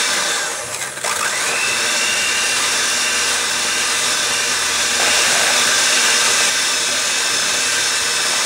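Electric hand mixer running, its beaters churning sugar and softened butter in a plastic bowl. The motor dips about a second in and its whine rises back up to speed.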